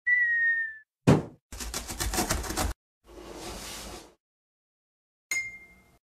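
Cartoon intro sound effects: a short whistle dipping slightly in pitch, a sharp thump, about a second of fast rattling, a softer whoosh, then near the end a sharp strike that rings on as a bright tone.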